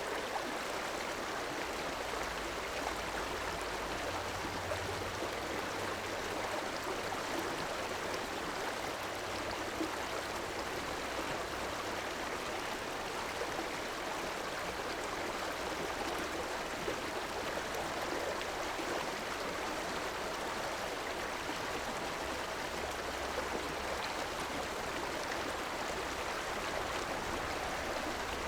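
River water flowing steadily, an even rushing sound, with a faint low rumble coming and going underneath.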